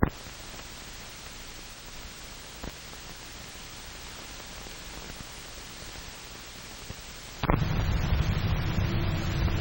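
Steady hiss of an old film soundtrack, with a sharp click at the start and a fainter one a few seconds later. About seven seconds in, a much louder low rumble starts suddenly and carries on.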